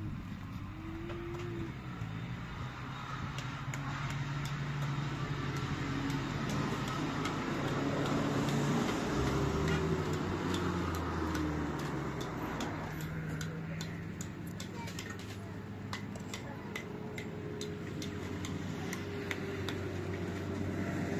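A motor vehicle's engine running, its pitch stepping up and down, with many sharp clicks and rattles over it.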